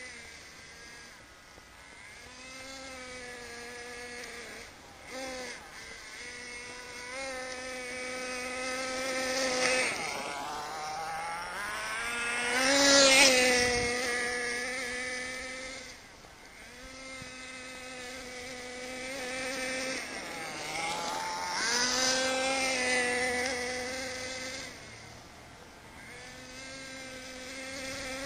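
HPI MT2 nitro RC stadium truck's small glow-fuel engine buzzing at a high pitch as the truck drives around, revving up and easing off again and again with the throttle. It is loudest about halfway through as the truck comes close, and dips quieter twice later on. The owner says the engine still needs tuning.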